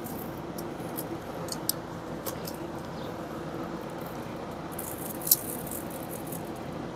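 Metal kitchen tongs clinking and clicking against a pellet grill's wire grate as drumsticks are set on it: a few sharp clinks, the loudest about five seconds in, over a steady low hum.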